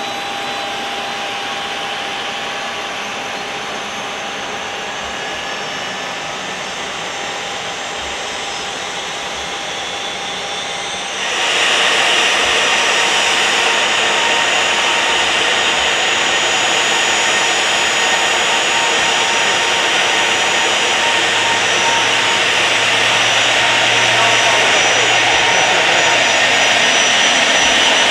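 Jet aircraft engines running, a steady whine over a loud rush. About eleven seconds in the sound jumps louder and the whine rises higher.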